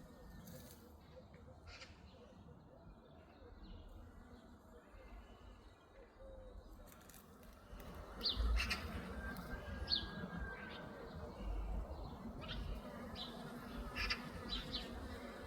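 Small birds chirping outdoors: short high chirps every second or so, starting about halfway through, over a low rumble.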